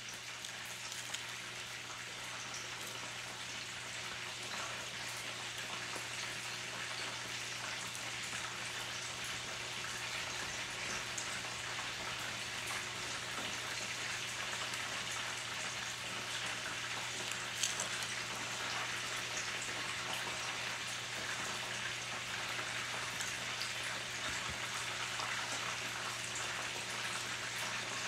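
Breaded pork cutlets frying in a pan of hot oil: a steady sizzle with fine crackling that grows slowly louder, over a low steady hum.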